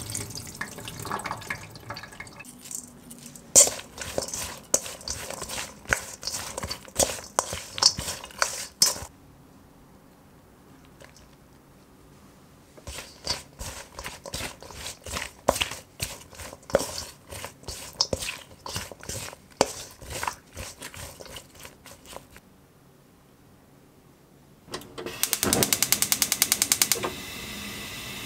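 Sweet potato strips being tossed with frying powder in a stainless steel bowl with a wooden spoon: irregular clacks and scrapes in two long bouts with a quiet pause between. Near the end a gas stove igniter clicks rapidly for about two seconds and the burner lights with a steady hiss.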